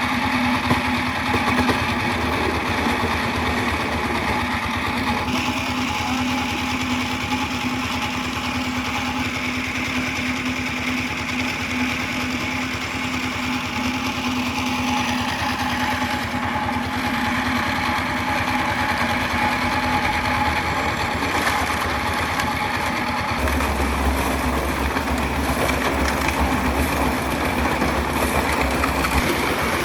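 A small engine running steadily at constant speed. About two-thirds of the way through its sound changes and a deeper hum comes in.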